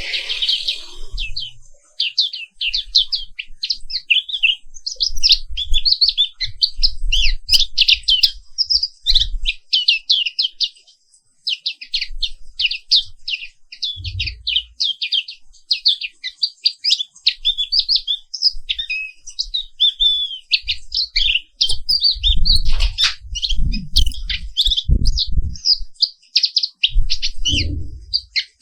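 A white-eye (pleci papua) singing a fast, nearly unbroken song of rapid high chirps and trills, pausing briefly about eleven seconds in. Low thumps sound now and then beneath the song.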